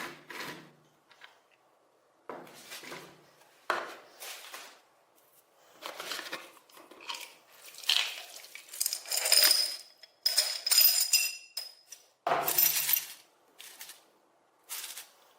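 Small metal parts being handled and set down, a string of irregular clinks and clatters, a few of them with a short ringing tone.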